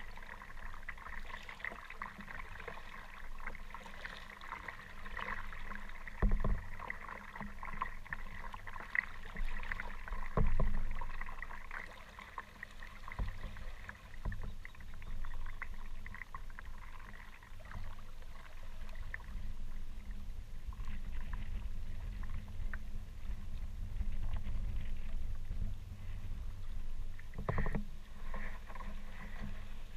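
Kayak on choppy water: water splashing and sloshing around the hull, with wind buffeting the microphone in a low rumble that grows stronger in the second half. A few sharp knocks from paddle or waves hitting the boat stand out, the loudest about six and ten seconds in.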